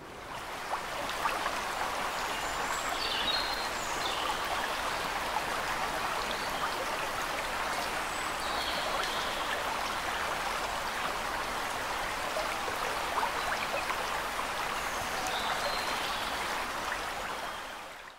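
Water rushing steadily through the Thames weir pool, fading in at the start and fading out near the end.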